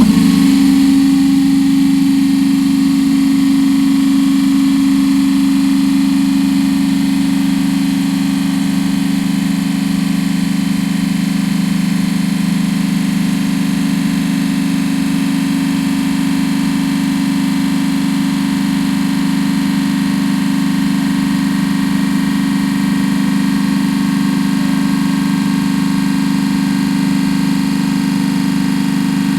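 Trane CRHR500 piston refrigeration compressor starting up suddenly and running on a run test: a loud, steady low hum that holds even throughout.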